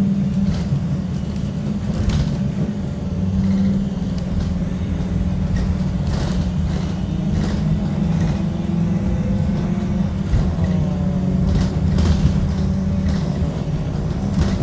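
Blue Bird Vision school bus heard from inside the cabin while driving: a steady low engine and road drone, with a few knocks and rattles scattered through it and a brief shift in engine pitch about ten seconds in.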